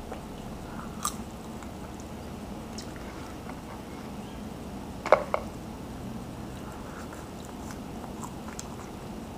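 A person chewing and biting on chicken wings, with mouth noises over a steady low background hum. There is a sharp click about a second in and a louder pair of clicks about five seconds in.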